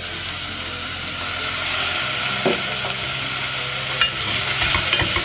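Chopped vegetables sizzling in oil in a pot while a wooden spatula stirs and scrapes through them, with a couple of short knocks, the loudest about four seconds in.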